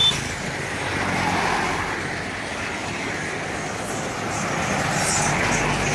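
Road traffic: motorbikes and cars going by on the street, the noise swelling about a second in and again near the end as vehicles pass.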